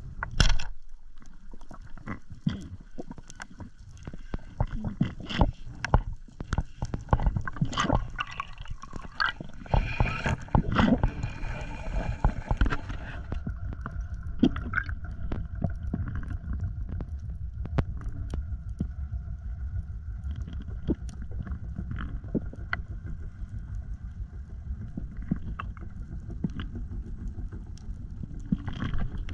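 Underwater sound picked up by a diving camera: a steady low water rumble with frequent sharp clicks and knocks. There is one loud knock about half a second in and a stretch of louder hiss in the middle.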